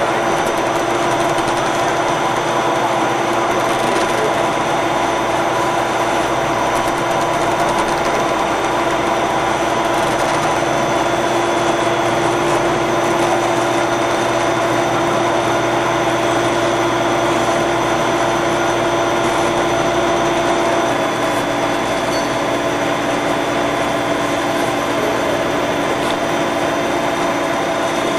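CPP film extrusion line running: a steady, loud machine hum and whine, several constant tones over a broad hiss. About three-quarters of the way through, one of the lower tones drops slightly in pitch.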